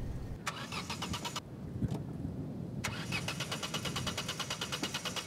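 An SUV's engine cranked on the starter without catching: a short try of about a second, then after a pause a longer try of over two seconds, each a fast, even chugging. The car has broken down and will not start.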